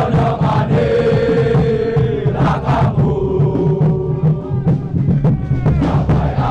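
A crowd of football supporters chanting in unison over a steady beat, the voices holding long notes.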